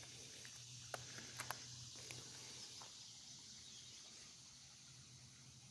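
Faint summer outdoor ambience: a steady high insect drone, with a few short sharp clicks about one to two seconds in.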